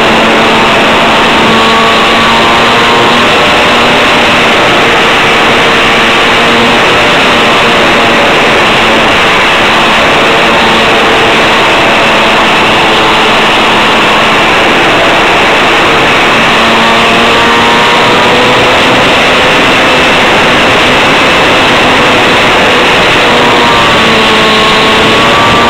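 Model airplane motor and propeller heard on board, running loud and steady with a slightly wavering pitch under heavy wind rush on the microphone.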